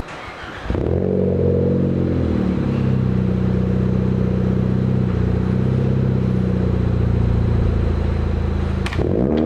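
2018 Ford Focus ST's turbocharged 2.0-litre four-cylinder heard through a Roush cat-back exhaust. The exhaust note rises in pitch about a second in, then holds steady at raised revs, with a short click near the end.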